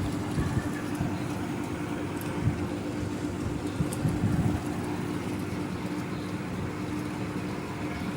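Panasonic CS-PU9XKH-8M inverter air conditioner running with a steady hum and the hiss of moving air, with a few irregular low thumps near the middle.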